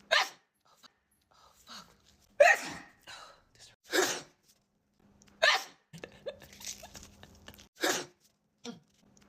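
A woman sneezing again and again, five sharp sneezes a second or two apart, with quieter breaths between them: an allergic sneeze attack.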